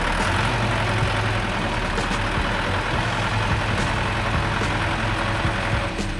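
A heavy vehicle's engine running steadily at an even speed, with a low, constant drone.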